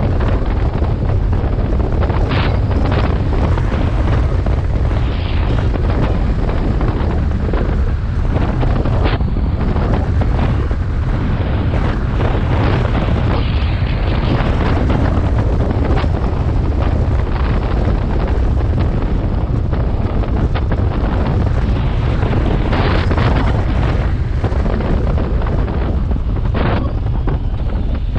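Wind buffeting the microphone of a BMW R 1250 GS motorcycle on the move, a steady loud rumble over the bike's running, with a few brief louder gusts.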